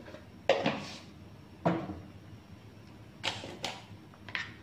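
About five short, sharp clacks and knocks as a glass seasoning jar, its plastic lid and a spoon are handled beside a cooking pot.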